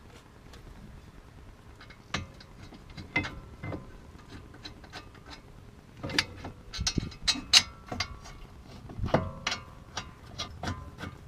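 Hand tools clicking and clanking against metal while the front brake caliper is bolted back onto the wheel hub: irregular sharp clicks and knocks with short metallic rings, busiest in the second half.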